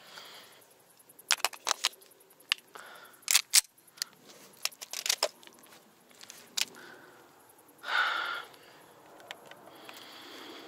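Sharp, short mechanical clicks and handling noises in small clusters with pauses between them, likely gear and pistol being handled close to the microphone. A louder rustling burst comes about eight seconds in.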